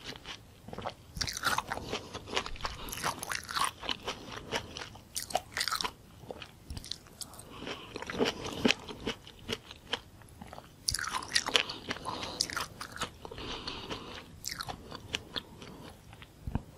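Close-miked chewing of juicy fresh fruit: wet, crunchy bites and mouth sounds that come in spells with short pauses between them.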